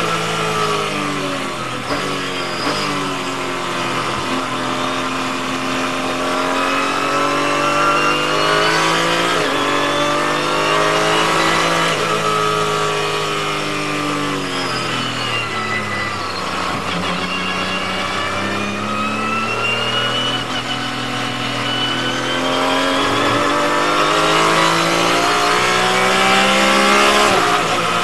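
Porsche 981 GT4R race car's flat-six engine at high revs, heard from inside the car. The pitch drops under braking as it changes down from fourth to third, climbs again as it accelerates out of the corners, and near the end it is back up near the redline in fourth.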